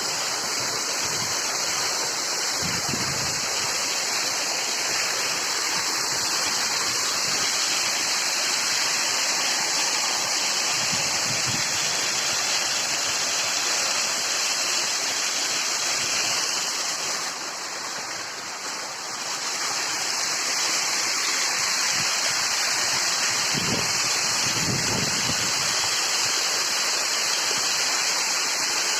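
Steady rushing of a monsoon waterfall pouring down a hillside, dipping slightly in level for a moment about two-thirds of the way through.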